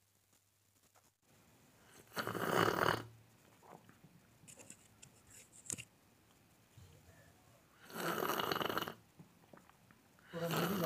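People slurping hot milky tea from cups, three loud slurps of about a second each, with a few faint clicks between them.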